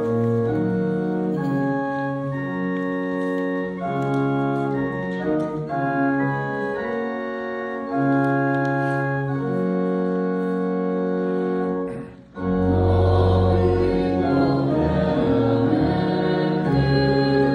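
Church organ playing sustained chords that change every second or so. About twelve seconds in it breaks off briefly and comes back louder with deep pedal bass, with the congregation singing along.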